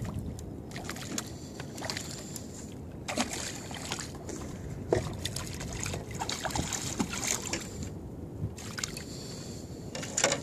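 A hooked redfish thrashing at the surface beside a small boat's hull, with water sloshing and irregular sharp splashes.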